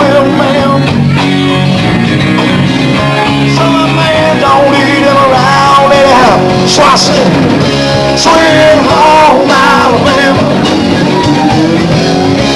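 Live rock band playing loud, with electric guitars and a singing voice over the bass.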